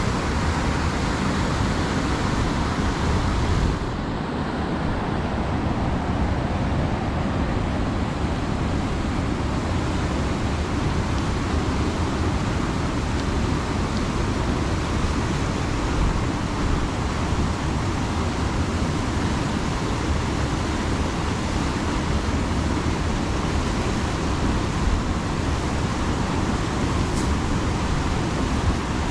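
River rapids rushing steadily over rocks, a continuous even noise.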